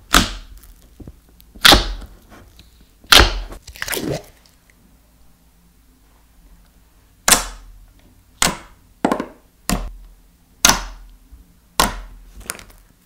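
Thick and glossy slime being pressed and poked with fingers, giving about eleven sharp, loud pops as trapped air bursts, spaced irregularly with a pause of a few seconds in the middle.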